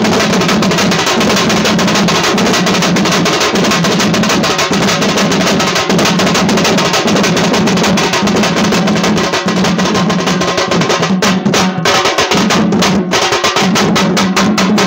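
Sing bajna folk band playing: rapid, dense drumming over a low held tone that swells and breaks about once a second. The strokes become more spaced out in the last few seconds.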